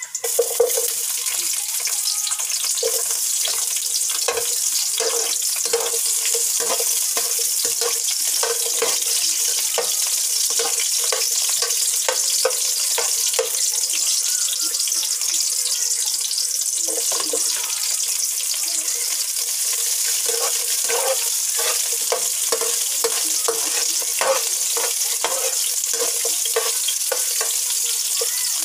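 Diced onion, garlic and chopped vegetables sizzling in hot oil in a wide metal pan. The steady frying hiss starts as the onion goes in. Through it a slotted spoon clinks and scrapes against the pan again and again as the food is stirred.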